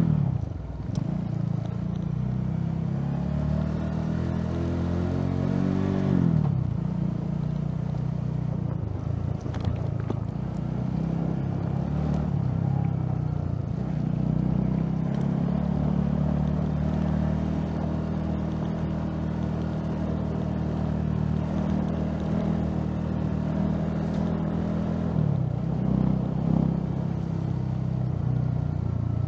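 Honda CB150R's single-cylinder engine running under way, its pitch rising for the first few seconds, dropping suddenly about six seconds in, then holding steady.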